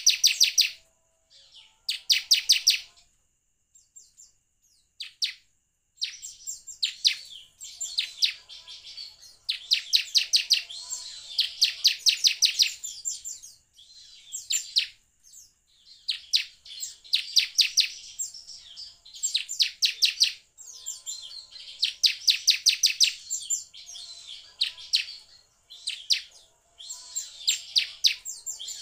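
Bar-winged prinia (ciblek) singing in bursts of rapidly repeated sharp, high chirps. Each run lasts one to three seconds, with brief pauses between them.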